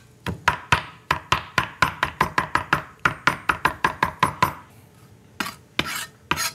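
Kitchen knife chopping fresh dill on a plastic cutting board. There is a steady run of about four sharp chops a second for roughly four seconds, then a short pause and a few scattered chops near the end.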